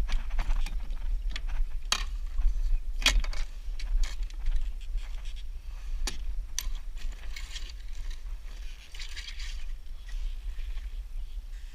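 Wind buffeting the microphone with a steady low rumble, over scattered sharp clicks and rattles of small hardware and a stretch of hiss about two-thirds of the way through.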